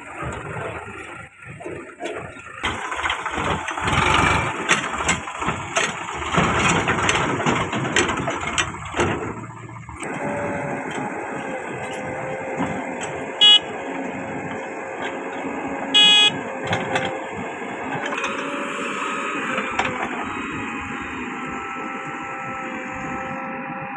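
Diesel farm machinery working: a tractor engine running unevenly with clatter, then a JCB 3DX backhoe loader's engine running steadily. Two short vehicle-horn beeps sound a few seconds apart midway.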